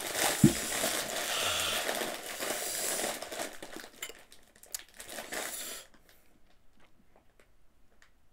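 Plastic chip packet crinkling for about four seconds, then a few faint clicks and taps that die away about six seconds in.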